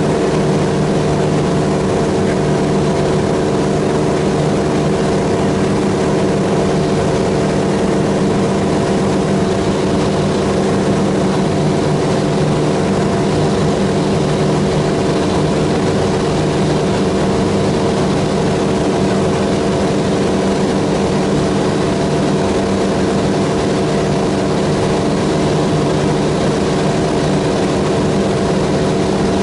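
Helio Courier's geared Lycoming GO-480 flat-six engine and propeller droning steadily in flight, heard from inside the cabin.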